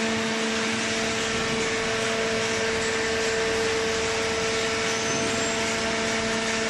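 Cardboard baler's hydraulic power unit running, a steady hum with a constant drone over a wash of noise.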